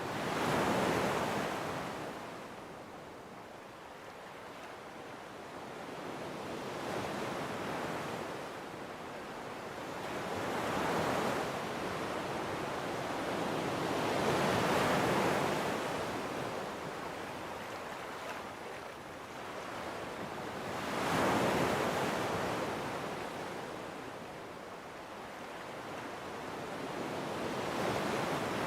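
Sea waves washing onto the shore, each one swelling up and fading away, about six in a row at uneven intervals of a few seconds.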